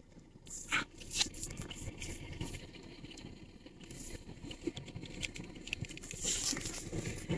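Irregular rustling and crackling close to the microphone, with a few louder bursts about a second in and again near the end, over a low, steady outdoor rumble.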